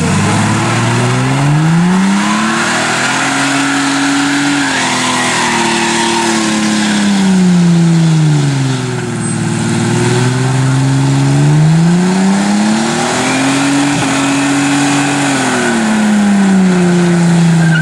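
Ford AU Falcon's engine revving hard through its automatic gearbox during a burnout, over the steady hiss and squeal of spinning rear tyres. The revs climb and hold high for a few seconds, drop away about nine seconds in, then climb again and fall off near the end.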